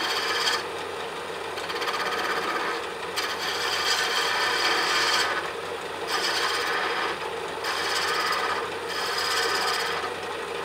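A turning tool cutting a small spinning wooden ball on a lathe, shaping the round end of a caddy spoon. The cutting comes in repeated passes a second or two long with short breaks between, over the steady hum of the lathe.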